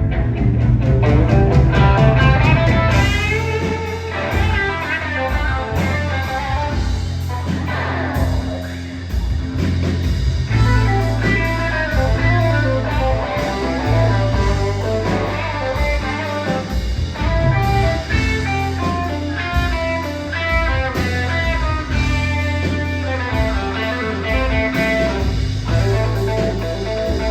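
Rock band playing: electric guitar lines over bass guitar and a steady drum beat.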